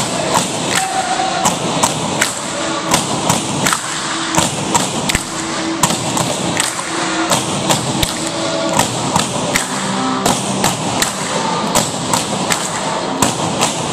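Tinikling poles knocking in a steady rhythm as the holders tap them on the wooden gym floor and clap them together, several sharp knocks a second.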